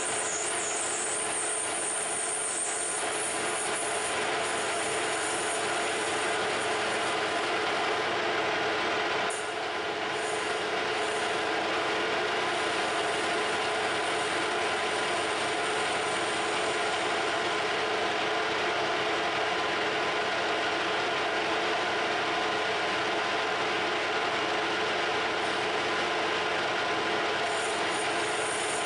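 Harrison M300 geared-head lathe running steadily, its gears whining, while a boring bar cuts into a spinning brass workpiece. The sound dips briefly about nine seconds in.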